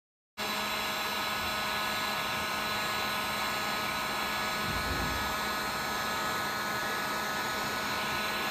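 Electric heat gun running, its fan blowing a steady rush of hot air with a faint motor whine as it heats a scratched composite decking board. It cuts in abruptly about half a second in.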